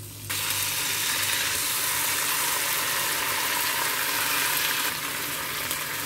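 Canned sardines in sauce tipped into a hot frying pan of sautéed onion, garlic and pepper, sizzling. The sizzle starts suddenly as they hit the pan and eases slightly near the end.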